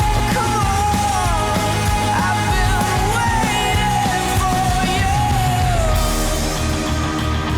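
Rock music with a high, wavering vocal line over heavy bass; the voice slides down and stops about six seconds in while the band plays on.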